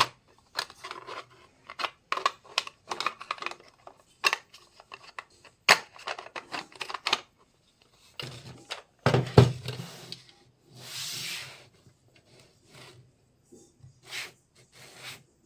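Miniature plastic toy kitchen pieces being unboxed and handled: irregular clicks, taps and rubbing, with a heavier knock a little past halfway and a longer swish just after it.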